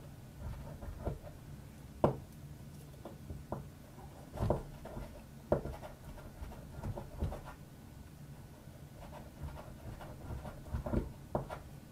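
A block of beeswax is rubbed hard against pine knife-handle scales, the friction partly melting the wax into the wood. It gives a soft scratchy rubbing with a few irregular light knocks of wax and knife against each other.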